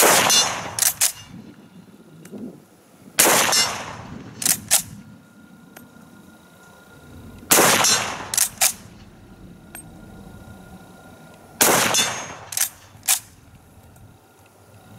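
Four rifle shots from a Schmidt-Rubin 1889 straight-pull rifle firing GP11 (7.5×55 Swiss) ammunition, about four seconds apart. Each shot is followed by two quick metallic clacks as the bolt is worked back and forward.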